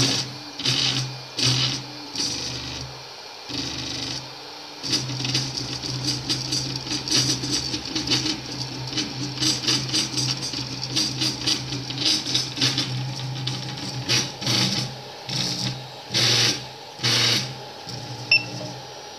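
Anet E16 3D printer running a print: its stepper motors buzz and whir in quick, irregular bursts as the print head and bed move back and forth. A single sharp click comes near the end.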